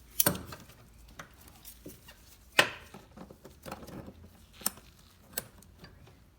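Scattered sharp clicks and light knocks of small metal and plastic mower parts being handled while a fuel-line clamp is refitted, the loudest knock about two and a half seconds in.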